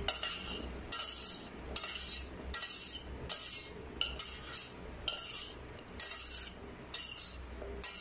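Metal spoon scraping and stirring boiled potato pieces with butter in a stainless steel pot, in a steady rhythm of strokes a little more than once a second, working the butter until it melts.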